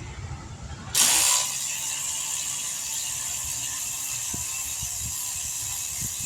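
A power tool starts about a second in with a loud burst, then runs steadily with a high whine.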